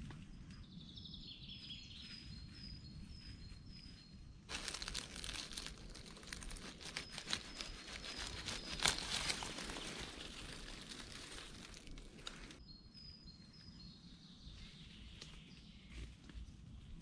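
A small bird repeating short high chirps over a low outdoor rumble. From about four seconds in until past twelve seconds, close, loud rustling and crackling of dry fallen leaves and grass being handled at ground level drowns it out.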